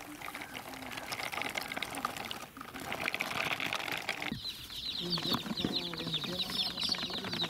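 About four seconds of scratchy rustling, then a sudden switch to young chicks cheeping: many quick high chirps in a busy, continuous run.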